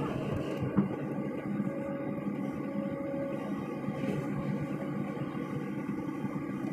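Excavator's diesel engine running steadily, heard from inside the operator's cab while the machine holds up a ship-launching rubber airbag, with one light knock about a second in.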